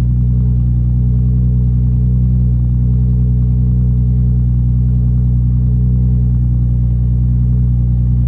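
Toyota Supra's 1JZ-GTE VVT-i turbocharged inline-six idling steadily, left running to steam off water that soaked the exhaust heat wrap during washing.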